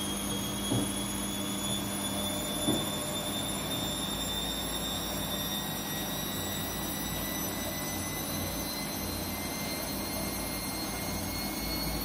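Front-loading washing machine running, its motor whine rising slowly and steadily as the drum speeds up, as in a spin ramping up. A low hum underneath stops about two and a half seconds in, and there are a couple of light knocks early on.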